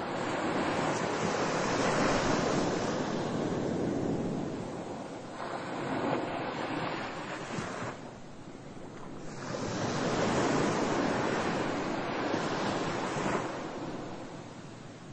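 Ocean surf: three swells of rushing water that rise and fade.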